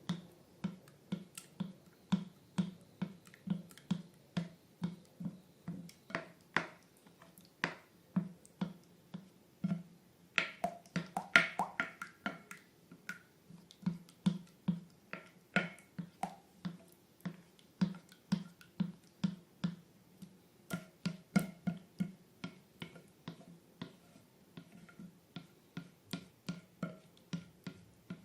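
Slime being worked by hand, making sharp wet clicking pops, over background music with a steady soft beat.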